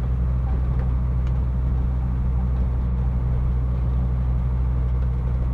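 Steady low drone of a car's engine and road noise, heard from inside the cabin while driving on a winding road.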